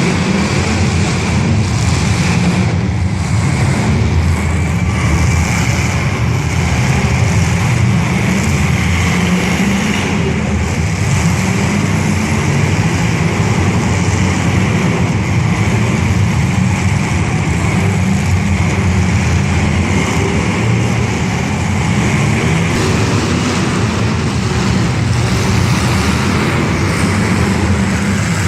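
Demolition derby car engines running, a loud, steady drone that never lets up.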